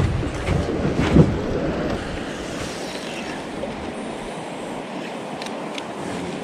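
Steady rush of flowing river water, with wind buffeting the microphone over the first two seconds and a single thump about a second in.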